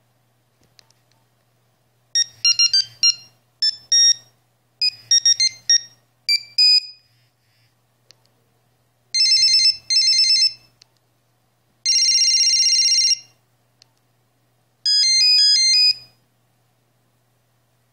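Nokia 6210 mobile phone playing its built-in monophonic ringtones through its small speaker, one after another. First comes a beeping melody of short high notes lasting about five seconds. Then come two bursts of fast trilling beeps, a held buzzing tone of about a second, and a quick run of up-and-down notes near the end.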